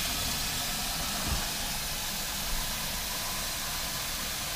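Chopped onion frying in olive oil in a pan, a steady sizzling hiss.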